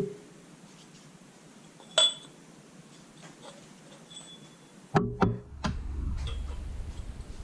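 Steel tools clinking and knocking while a ball joint is pressed into a suspension control arm with a ball joint press kit. There is one sharp ringing clink about two seconds in, then two knocks about five seconds in, followed by a low rumble with light clicking.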